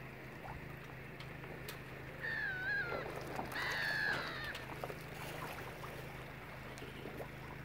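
Gulls calling twice, each a short downward-sweeping cry, about two seconds and three and a half seconds in, the second longer and louder. Underneath runs a steady low hum, with a few light clicks.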